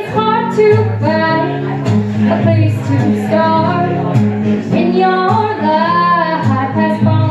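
A woman singing with acoustic guitar accompaniment, holding long notes that bend in pitch, with one long held note about five to six and a half seconds in.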